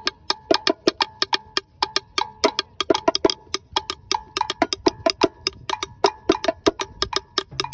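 A small wooden barrel hand drum played with bare hands in a fast rumba rhythm. It is a dense run of sharp slaps and short ringing open tones, about five or six strokes a second.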